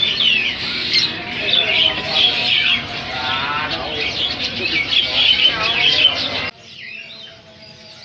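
Many caged songbirds chirping and singing at once: a dense chorus of overlapping short calls and quick trills. It cuts off suddenly about six and a half seconds in, leaving fainter chirps.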